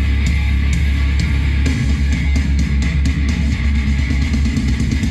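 Rock track with guitar and drums played loud through an Eltronic 20-61 Fire Box 1000 portable speaker, reading about 93 to 98 dB on a sound level meter at one metre.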